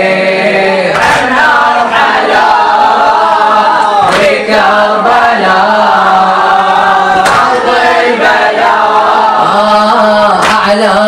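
A boy reciter chanting an Arabic Muharram elegy (latmiyya) into a microphone, an unaccompanied melodic line of long, wavering held notes.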